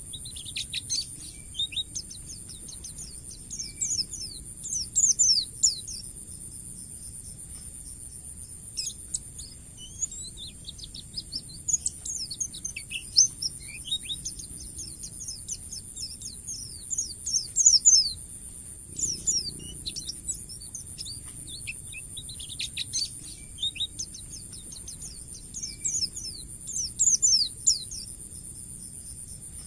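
White-eye (pleci) singing rapid, high twittering phrases in bursts every few seconds, the ngalas-style song used for masteran training, over a steady high-pitched hiss.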